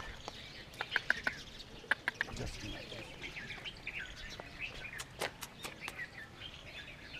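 Many small birds chirping and twittering in the background, with a few sharp clicks or taps about a second in, around two seconds in, and a cluster around five seconds in.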